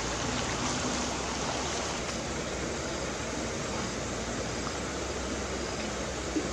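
Shallow stream running over rocks: a steady rush of water, with one light click near the end.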